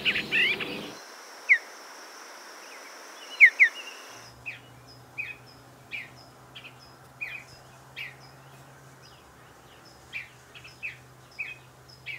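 Bluebirds calling. A quick twittering run of notes ends about a second in, then a few single down-slurred notes follow. From about four seconds on, short high call notes repeat every half second or so over a faint low hum.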